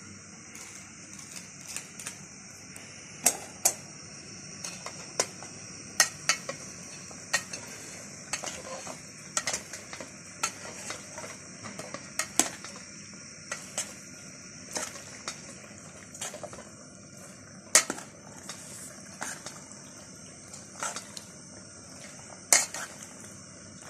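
Metal spoon clinking and scraping against an aluminium pot while stirring pasta: irregular sharp clinks, a few much louder than the rest.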